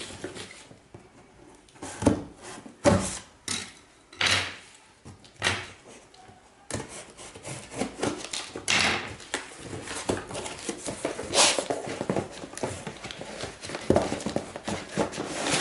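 A cardboard box and its packaging being opened and handled by hand: a string of knocks, taps and rustling, turning into busier, near-continuous rustling about seven seconds in.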